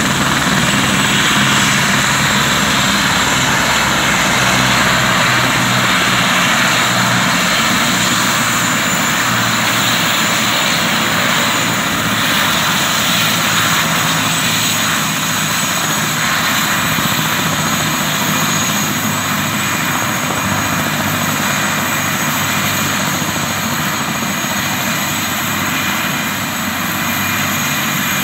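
Helicopter running on the ground after landing: a steady high whine over a low rumble and rush, easing slightly in loudness.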